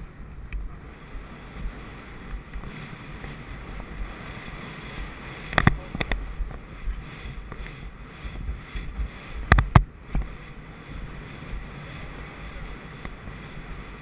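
A horse galloping on a dirt track: rumbling wind buffeting the camera's microphone over the horse's irregular hoofbeats, with a few sharp knocks, about five and a half seconds in and a close pair about nine and a half seconds in.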